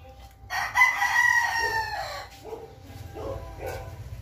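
A rooster crowing once, a call of under two seconds that starts about half a second in and drops in pitch at its end, followed by a few short, fainter calls.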